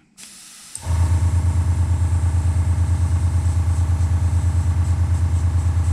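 Small piston airbrush compressor kicking on about a second in and running with a loud, low hum that pulses rapidly and evenly. A faint hiss of air comes just before it starts.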